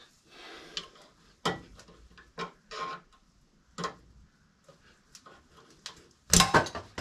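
Scattered light metallic taps and clinks as a steel rod and fingers work a chilled interference-fit seal ring into the heated axle housing bore of a New Holland L783 skid steer, with a louder clatter of knocks near the end.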